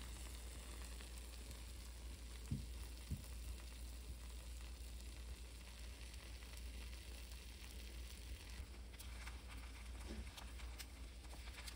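Faint steady sizzle of mushroom rice cooking in an enamelled cast iron pot on a gas burner, with a few light clicks near the end as a spatula goes into the pot to mix it.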